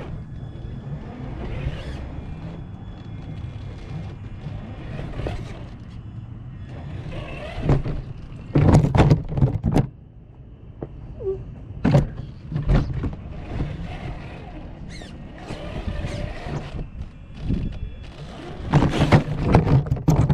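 Radio-controlled car running over rock: a steady low motor rumble, broken by loud knocks and clatters about eight to ten seconds in, again near twelve seconds, and near the end.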